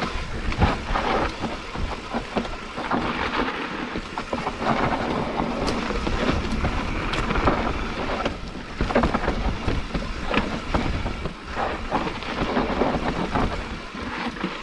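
Mountain bike riding fast down a dirt trail: tyres rolling over dirt, with constant rattles and knocks from the bike over bumps, and wind rumbling on the microphone.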